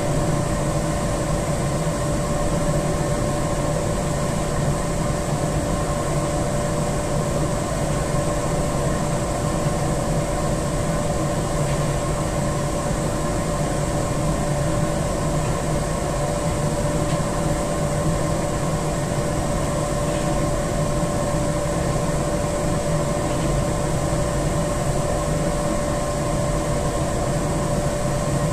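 Steady hum of machinery running at an industrial boiler: a constant mid-pitched tone over a low rumble and a hiss of air, unchanging throughout.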